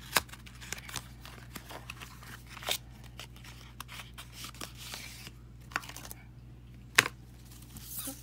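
A small cardboard box being opened and handled, with its peeled-off plastic wrapper nearby: scattered clicks, taps and rustles, with the two sharpest taps near the start and about seven seconds in.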